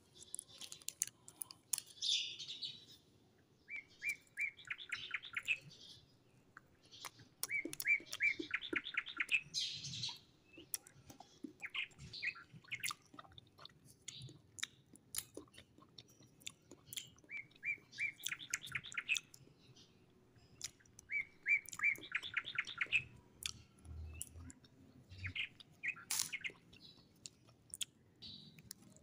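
A small songbird singing a fast, evenly pulsed trill about five times, each phrase lasting roughly two seconds. Between the phrases come scattered sharp clicks and crunches of small hard candies being handled and chewed.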